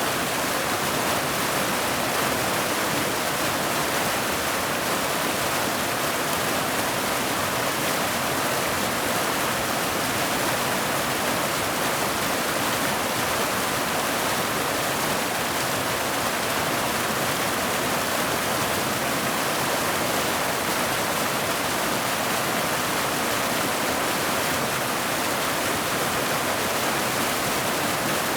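Waterfall cascading over boulders into a pool: a steady, unbroken rush of falling water, bright and hissing, with little low rumble.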